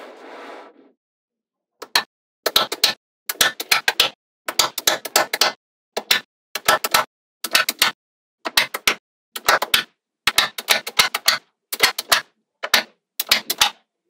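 Small magnetic balls snapping together as blocks of them are pressed onto a magnetic-ball build: quick clusters of sharp metallic clicks. The clicks start after a short pause about two seconds in and then come in groups every half second or so.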